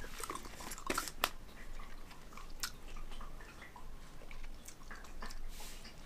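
A person chewing soft gummies with closed lips, close to the microphone: faint, irregular wet clicks and smacks.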